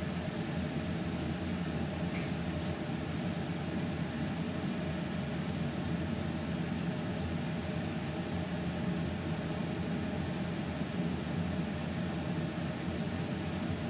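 Steady low rushing hum from a stove running on high heat under a large pot of crawfish boil liquid as it comes up to a boil.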